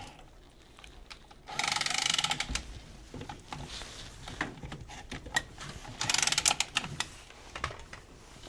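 Milwaukee M12 automatic tubing cutter whirring around a copper water pipe in two bursts of about a second each, cutting the pipe, with scattered light clicks in between.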